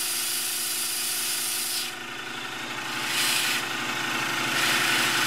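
Live steam model Hunslet 0-4-0 saddle-tank locomotive running with its wheels spinning free in full forward gear, its motion and exhaust giving a steady, fast hiss. The hiss dips about two seconds in and comes back stronger.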